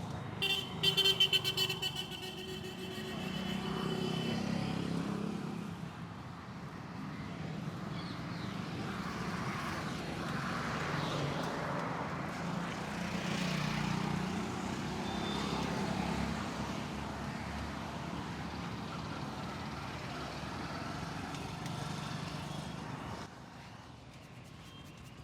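Street traffic going by, with a vehicle horn honking in short blasts about a second in.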